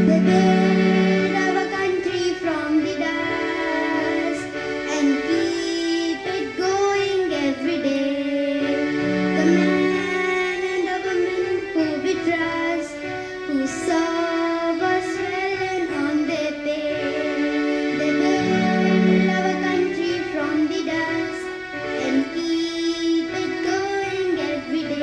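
A song sung by high voices over instrumental backing, with long held notes and a low note that comes back every few seconds.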